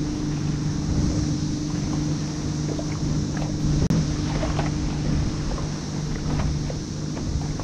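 Small waves lapping and ticking against a plastic kayak hull, with wind on the microphone and a steady low hum underneath. One sharp click about four seconds in.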